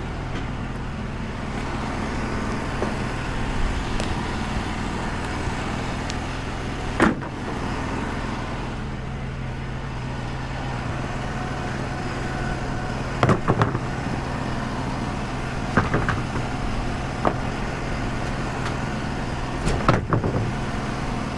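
Wood-Mizer LT35 sawmill running steadily, its engine droning while the band blade cuts through a pin oak log. A few short, sharp knocks come through about 7, 13, 16 and 20 seconds in.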